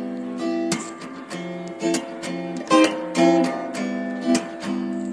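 Background music: acoustic guitar strumming chords in a steady rhythm.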